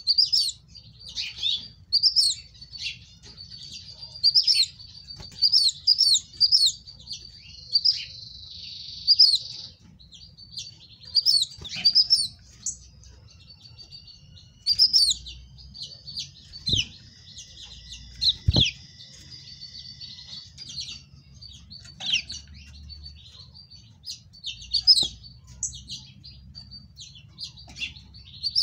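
House finches chirping repeatedly, short high chirps with quick sweeps in pitch, and a brief buzzy run about a third of the way in. Two sharp knocks a little past halfway.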